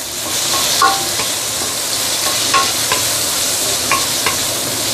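Shell-on prawns sizzling in hot garlic oil in a stainless steel wok while a wooden spatula stirs them, scraping and knocking against the pan several times over the steady hiss.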